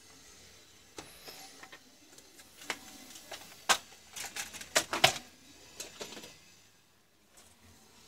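Irregular clicks and knocks from handling small things on a workbench, the loudest a little under 4 s in and a cluster around 5 s in.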